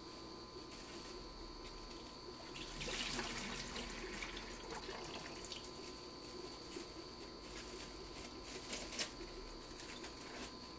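Saltwater poured off from a plastic livestock bag: a pour lasting about a second and a half some three seconds in, then scattered drips and trickles. A faint steady high whine runs underneath.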